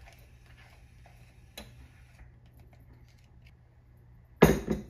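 Silicone spatula scraping a small glass bowl, making faint scattered ticks, then a loud double knock of kitchenware on the counter near the end.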